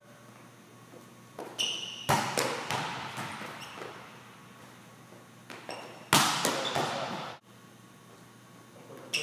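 Volleyballs being hit and bouncing on a hard court floor, ringing in a large echoing hall: two loud smacks about four seconds apart, each followed by a few lighter bounces. A short high ping comes about a second and a half in, and another smack right at the end.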